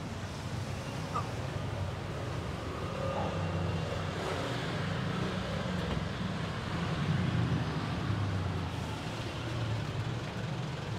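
Steady low vehicle rumble with road-traffic noise, swelling slightly about seven seconds in.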